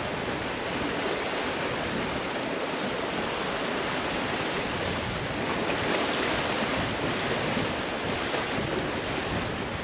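Wind buffeting the microphone over a steady hiss, with sea beet leaves sizzling in oil in a frying pan on a portable gas stove.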